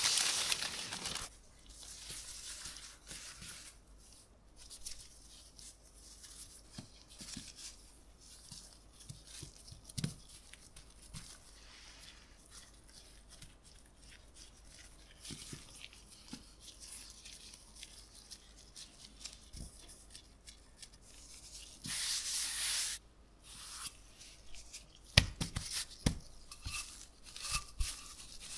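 Parchment paper crinkling as it is peeled off a slab of butter, then soft rubbing and rustling of gloved hands folding pastry dough over the butter, with another loud paper rustle later on. Near the end come dull thumps of a wooden rolling pin pressing the dough.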